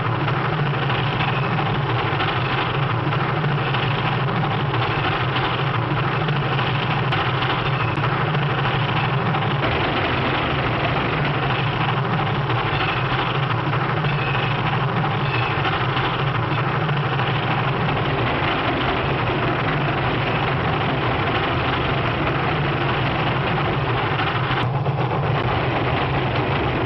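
Steam train running at speed: a steady, unbroken rumble with rail noise, on an early sound-film track.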